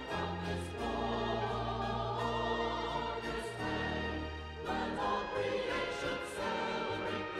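Background choral music: voices singing long, wavering held notes over steady low accompanying notes, the chord changing about two-thirds of the way through.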